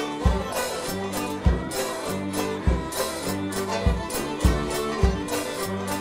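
An English country dance band playing a dance tune live, led by the fiddle over melodeon, banjo, bass saxophone and drum kit. The bass drum keeps a steady beat of about one thump every 0.6 seconds.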